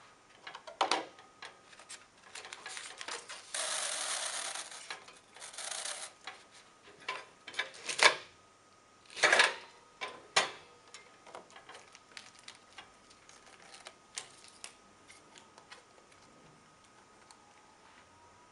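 A tray sealing machine at work as a microwave tray is sealed with lidding film: scattered clicks and clatters, a hissing rush lasting about a second and a half a few seconds in, and several sharp knocks a little later. After that there are only faint ticks over a faint steady whine.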